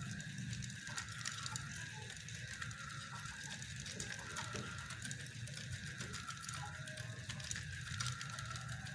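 Spinning reel being cranked to wind PE braided fishing line onto its spool: a steady run of fine, rapid clicking from the reel's gears.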